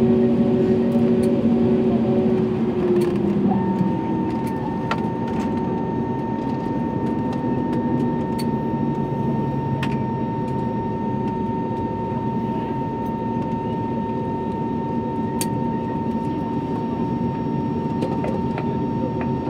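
Cabin noise inside an Airbus A320 on the ground after landing: a steady rumble of engines and airflow, with a steady whine that sets in about four seconds in and a few light rattles.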